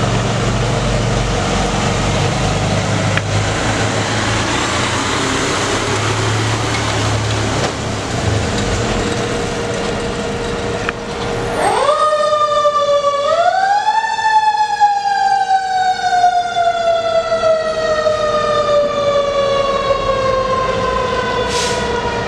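A fire engine's motor rumbles as the rig pulls away. About twelve seconds in its siren starts, rising in two steps to a high pitch and then slowly falling for the rest of the time.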